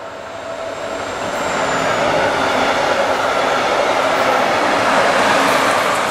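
A DB regional train of double-deck coaches, hauled by a BR 143 electric locomotive, passes at speed. The rolling and rushing noise of its wheels on the rails swells as it approaches and is loudest about five seconds in as the locomotive goes by, then starts to fade.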